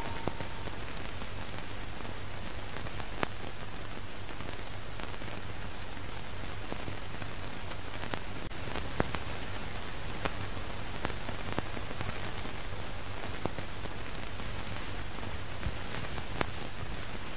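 Steady crackling hiss with scattered, irregular clicks and pops, like the surface noise of an old film soundtrack or record.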